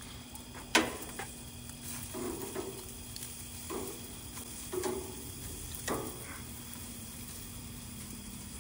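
Food sizzling as it cooks, tomatoes and chiles charring for salsa, under a steady faint hum. Several sharp clicks and clatters of utensils come through it, the loudest about a second in.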